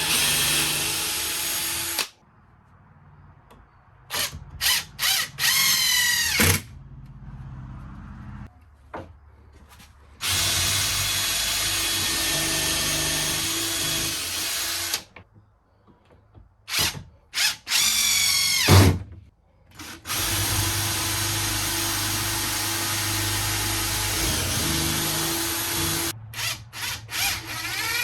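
Power drill running in bursts: three long steady runs and several quick trigger pulses. Its whine falls in pitch as it winds down after each release.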